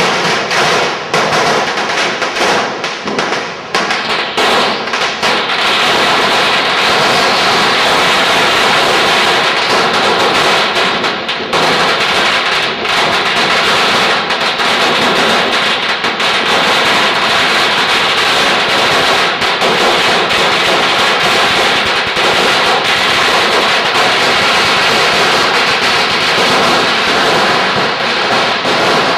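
Firecrackers going off: separate sharp bangs for the first few seconds, then a long, dense run of rapid crackling bangs that keeps going without a break.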